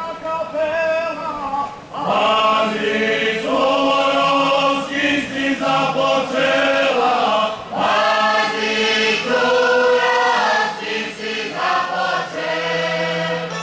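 A group of folk singers singing a traditional Slavonian song without instruments, in drawn-out phrases a few seconds long; a louder new phrase begins about two seconds in.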